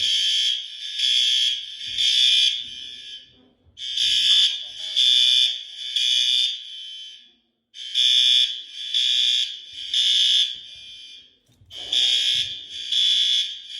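Building fire alarm horns sounding the temporal-three evacuation pattern: three loud, high-pitched beeps, then a pause, repeating four times. The alarm is being set off on purpose as a test of a newly installed system.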